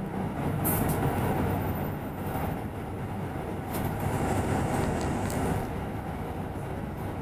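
Steady low rumble of a double-decker bus in motion, heard from inside on the upper deck, with a few sharp rattles and clicks from the cabin.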